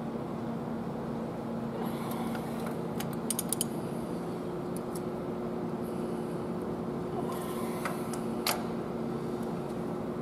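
Ratchet wrench clicking as it turns the camshaft gear bolts on an engine's gear train: a quick run of clicks about three seconds in, a few single clicks later and a sharper one near the end, over a steady background hum.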